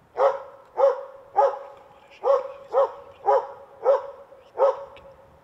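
Hunting dog barking steadily at a moose during a moose hunt with dogs: eight sharp barks, about two a second, the bay-barking of a dog holding the moose at bay.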